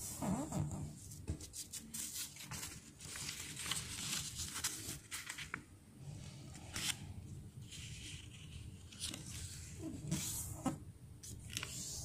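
Thin origami paper rustling and crinkling as fingers fold it into a triangle and press along the folded edges, with irregular scrapes and short crackles.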